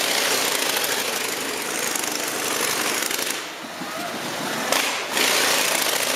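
Motorcycle engine running loudly on the floor of a Wall of Death drome with a rapid, rattling exhaust. It falls back for about a second midway, then picks up again near the end.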